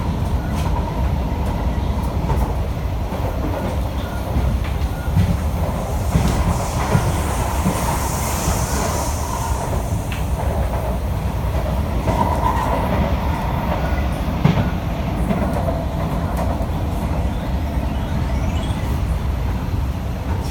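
SMRT C151B metro train running along the line, heard from inside the car: a steady low rumble with scattered clicks from the wheels on the rails.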